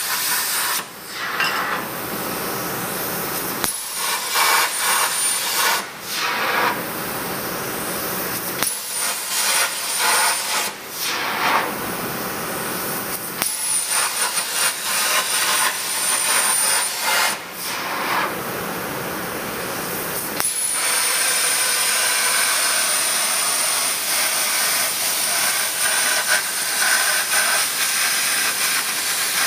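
CNC plasma cutter torch cutting steel plate: a harsh hiss of the arc and air jet with a thin high whine. It stops and restarts about eight times in the first twenty seconds, then cuts without a break.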